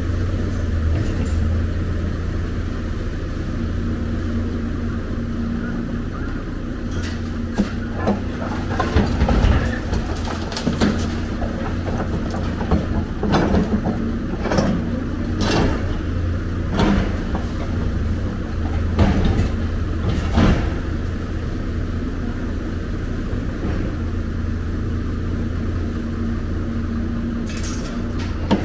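Diesel engine of a Hyundai crawler excavator running steadily, with a string of knocks and clatters from about 7 to 21 seconds in and again near the end, as the steel bucket digs and drops demolition rubble.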